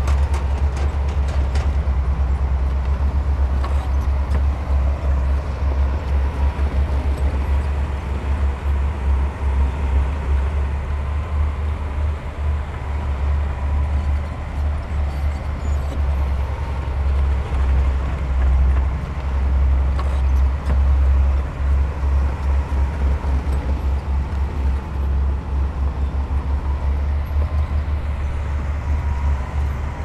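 Heavy diesel earthmoving machinery running: a deep, steady engine rumble with a faint high whine over it.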